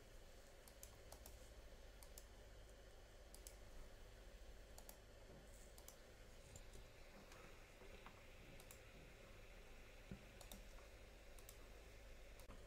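Faint, irregular clicks of typing and clicking on a computer keyboard, a few keystrokes at a time, over a low steady hum.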